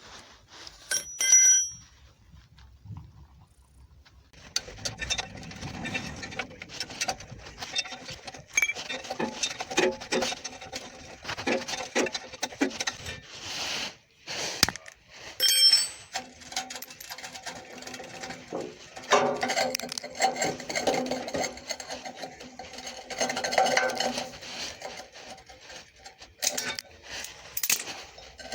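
A metal part clinks once with a short ring, then a hand tool rasps back and forth on metal in repeated uneven strokes, pausing briefly halfway through.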